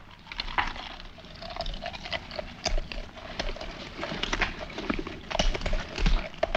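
A man chewing and munching a mouthful of food noisily: an irregular run of crunchy crackles and smacks.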